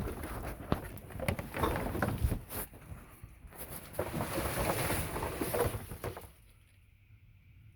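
Objects being shifted and rummaged through: irregular knocks, clatters, scrapes and rustling, dying down about six seconds in.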